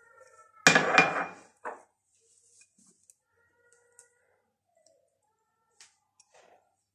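Kitchen dishes clattering: a sudden loud clatter with a brief ring about a second in, then a shorter knock, and a few faint clinks afterwards.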